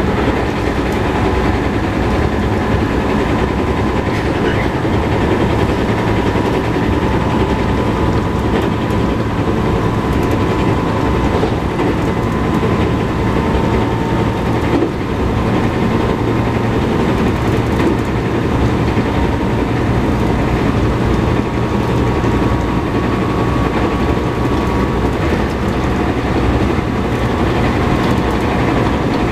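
JR West 221 series electric train running at speed, heard from on board: continuous wheel-on-rail and running noise with a steady whine. Underneath runs the thud of a flat spot on a wheel.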